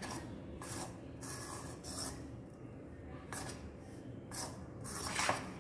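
A utensil stirring and scraping rice-flour dough scalded with boiling water in a vessel, in irregular rasping strokes about once a second.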